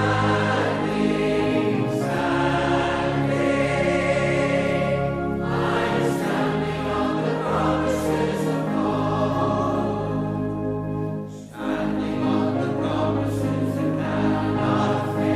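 Choir singing a hymn in harmony, with a short breath between phrases about eleven seconds in.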